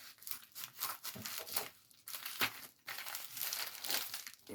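Packaging crinkling and tearing as a double-wrapped parcel is pulled open by hand, in irregular crackles and rustles with brief pauses.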